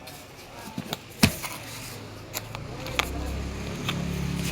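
Handling noises from an unboxing: a series of sharp clicks and knocks, the loudest about a second in, with a low steady hum coming in about three seconds in.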